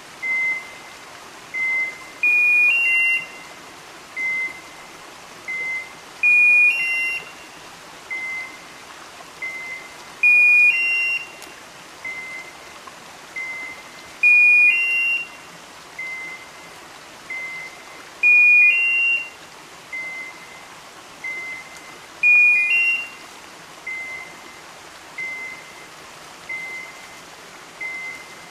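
Electronic beeper collars on pointing dogs working the cover: a short steady beep repeating a little more than once a second, and every four seconds a louder two-note beep stepping up in pitch.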